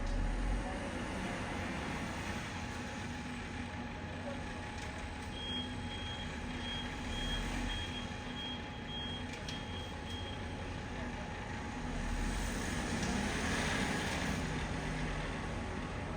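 A backup alarm beeping in short, even beeps about twice a second for some five seconds, starting about five seconds in, over the low steady rumble of a heavy machine's engine.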